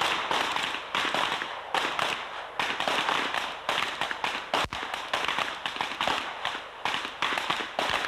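A line of military-class pistols fired by several shooters at once: a fast, irregular string of sharp shots, two or three a second, sometimes overlapping.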